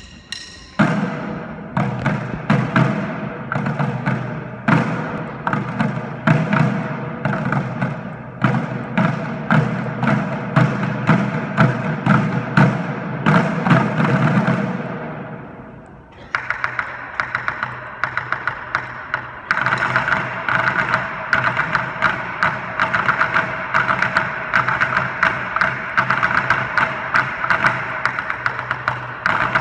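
School drum line playing a rhythmic pattern of rapid drum strokes. The playing dies away about halfway through, then starts again with a lighter, higher-pitched tapping that fills out a few seconds later.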